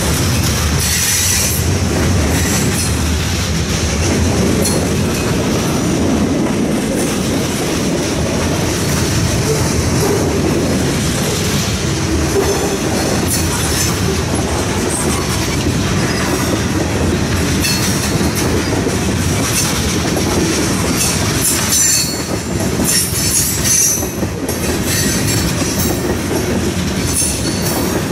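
Norfolk Southern freight train of covered hoppers and tank cars rolling past steadily, steel wheels clattering over the rail joints. High-pitched wheel squeals come and go throughout.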